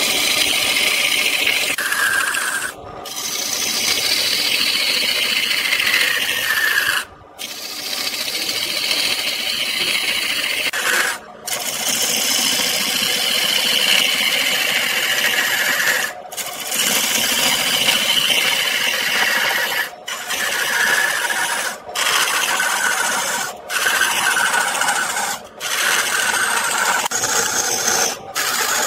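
Turning gouge cutting into a wood blank spinning on a lathe, a continuous scraping, shaving sound broken by brief pauses every few seconds as the tool comes off the wood between passes.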